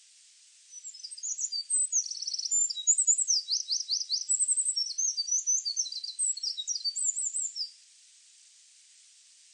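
A songbird singing one long, rapid, varied song of high chirps, trills and quick down-slurred notes for about seven seconds, over a faint steady hiss.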